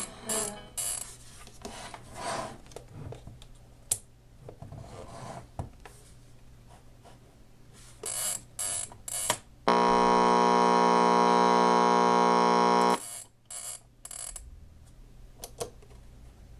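The alarm buzzer of a Lloyd's JJ-1617 flip clock radio sounds a steady buzz for about three seconds, starting about ten seconds in, then cuts off suddenly. Scattered clicks and a few short bursts of hiss come before and after it.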